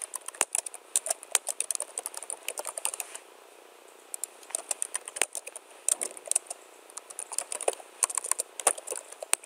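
Typing on a computer keyboard: quick runs of keystroke clicks, with a pause of about a second a little after three seconds in.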